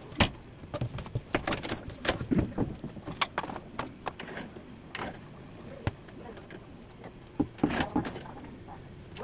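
Irregular knocks and metallic clinks as a 3/4-inch plywood sliding door panel is handled and fitted onto its steel frame and overhead track. The sharpest knock comes just after the start.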